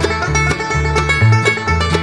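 Background music: upbeat plucked-string music in a bluegrass style over a steady beat and a moving bass line.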